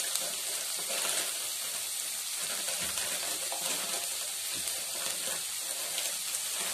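Onions, raw green tomatoes and chillies sizzling in hot oil in a non-stick kadai: a steady frying hiss with faint scattered crackles.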